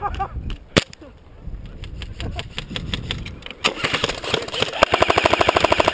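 Airsoft electric gun firing on full auto: a fast, even rattle of shots that gets loud about two-thirds of the way in. Fainter, slower clicking comes before it.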